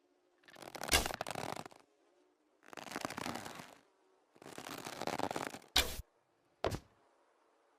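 Manchu bow and arrow being handled: three bursts of rustling friction about a second long each, then two sharp snaps about a second apart.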